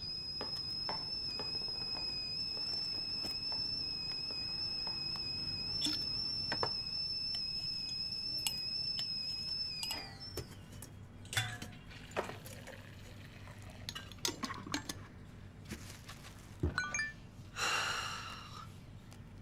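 A steady high-pitched whistle holds one pitch for about ten seconds, then slides down and stops. After it come scattered light clicks and clinks, and a short hiss near the end.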